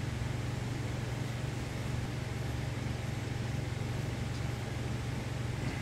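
Steady low mechanical hum, like a motor or ventilation unit running in the room, with no clear clicks or knocks over it.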